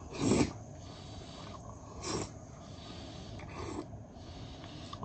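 Slurping: a person sucking sauce-coated strips of pork-skin jelly off chopsticks into the mouth, three short slurps about a second and a half to two seconds apart.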